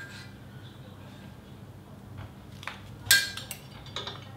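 Metal handlebar knocked onto an air-walker exercise machine's metal frame: one sharp clink with a short ring about three seconds in, among a few lighter knocks and rattles.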